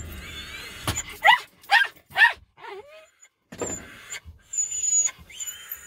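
Border terrier barking three quick, sharp times about half a second apart, followed by a softer, lower yelp.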